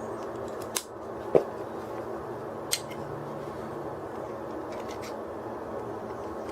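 A few short sharp clicks, the loudest about a second and a half in, from the plastic clips and straps of a hydration backpack being handled, over a steady background hiss.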